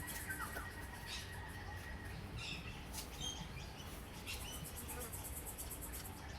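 Wild birds calling with short chirps and whistles, plus a high, fast-pulsing buzz near the start and again in the second half.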